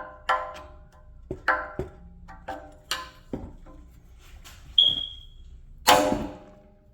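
Sharp metal-on-metal knocks and taps, each with a short ring, as a flathead screwdriver is worked against a stubborn steel dust cap on a car's rear wheel hub to pry it off. There are about eight irregular strikes, with a brief high ring about five seconds in and the loudest knock just after it.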